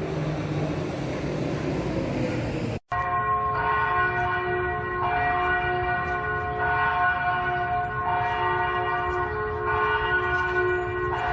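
Church bells ringing. For the first three seconds a rising rushing noise lies over fading bell tones, then cuts off suddenly; after that a peal of several bells at different pitches strikes about once every second and a half, each stroke ringing on under the next.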